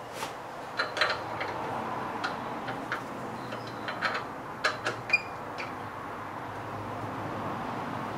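Metal clicking of a key-operated wood-lathe chuck as its chuck key is turned to clamp a wooden disc blank in the jaws: a dozen or so sharp, irregular clicks and ticks over the first five seconds or so.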